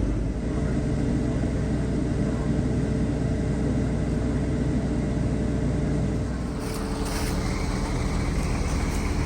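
Heavy diesel vehicle engine running steadily, a low drone heard from inside the cab, its tone shifting about six and a half seconds in.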